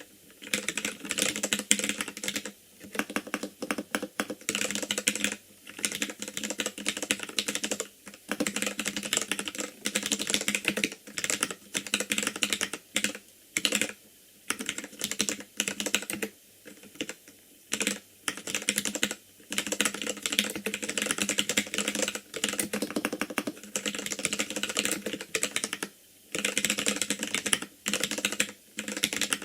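Continuous fast typing on an ikbc Poker II mechanical keyboard with Gateron Red linear switches: rapid keystroke clicks in bursts, broken by short pauses every couple of seconds.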